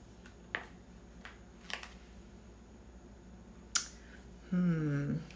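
A few light clicks and taps from handling sheets of paper planner stickers, the sharpest near the end, followed by a brief hummed voice.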